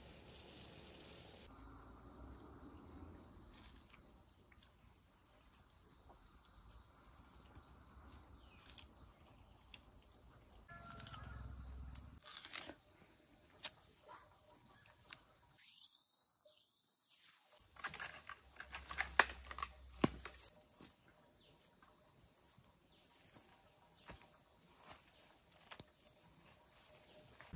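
Steady high-pitched insect drone over faint outdoor noise, with a few sharp knocks or clicks a little past the middle.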